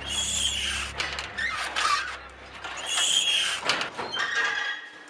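Farm windmill's water pump creaking and squealing, two long metallic creaks about three seconds apart, over a low steady drone.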